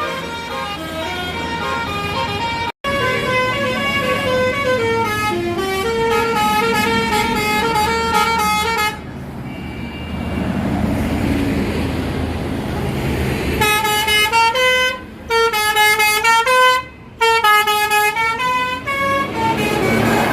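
A Basuri multi-tone bus horn (telolet) playing a melody of stepped notes. About 9 seconds in the melody stops and the bus's engine noise takes over. Then, from about two-thirds of the way in, short separate horn notes sound again.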